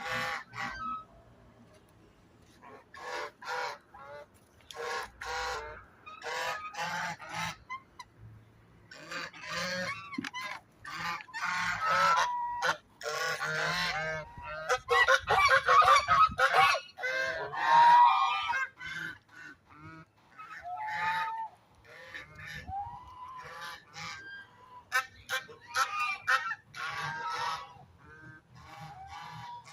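Domestic geese honking repeatedly, the calls coming in clusters and overlapping into a loud chorus of honks through the middle.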